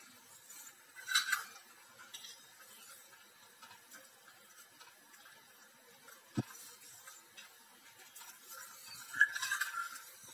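Steel ladle stirring and scraping around a steel kadhai of simmering chutney, with scattered soft clinks and scrapes. Louder scraping comes about a second in and again near the end.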